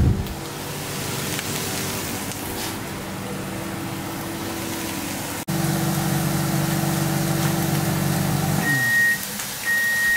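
Microwave oven humming steadily, then switching off near the end and giving two short high beeps as its cycle finishes.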